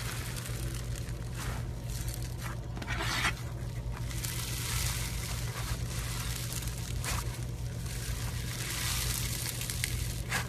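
Slime being squeezed and stretched by hand, making irregular stretches of sticky, wet noise, densest from about four seconds in until near the end.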